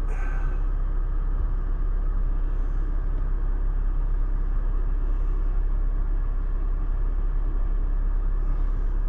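Steady vehicle road noise from inside the cab: the engine and tyres rumble evenly while driving slowly along a rough dirt lease road.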